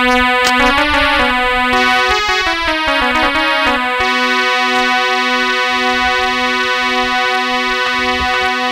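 Electronic keyboard playing: a held note, then a run of falling notes over about three seconds, then a sustained chord whose lower notes pulse in a steady beat.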